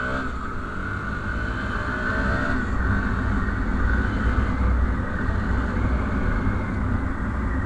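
Bajaj Pulsar NS 160's single-cylinder engine running as the motorcycle is ridden, its note rising over the first couple of seconds, under a steady low wind rumble on the microphone.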